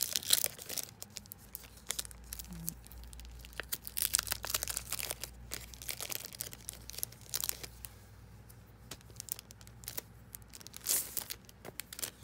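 Clear plastic packaging sleeve crinkling and tearing as a paper booklet is worked out of it: irregular crackling, louder near the start, again around four to five seconds in, and once more about eleven seconds in.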